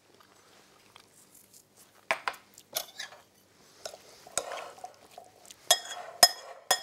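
Metal spoon stirring a dressed lentil and chickpea salad in a glass mixing bowl: soft scraping, then scattered clinks of spoon on glass. The last few clinks, in the final second or so, ring out clearly.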